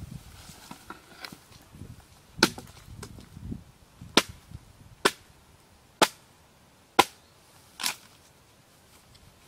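Six sharp chopping knocks on wood, spaced roughly a second apart, the last one softer.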